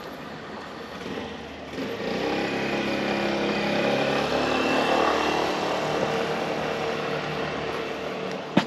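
A motor vehicle passes close by. Its engine grows louder about two seconds in, peaks midway, then slowly fades. A single sharp knock sounds near the end.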